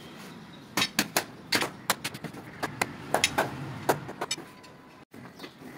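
A rapid, irregular run of about a dozen sharp clicks and knocks from a ceramic wall tile being pressed and tapped into place by hand, settling it into the adhesive. The tapping starts about a second in and stops after a few seconds.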